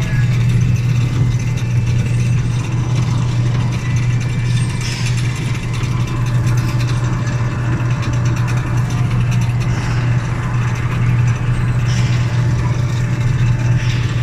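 Amusement park train number 9 running, a steady low hum with mechanical rattling throughout.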